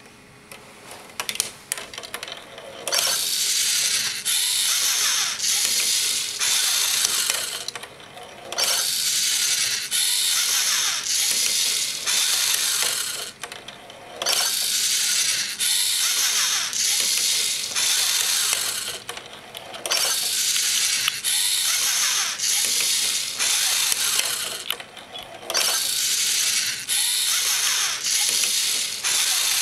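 LEGO Mindstorms NXT servo motors and their plastic gear trains whirring and grinding as the robot arm moves, in about five runs of several seconds each with short pauses between. A few light clicks come before the first run.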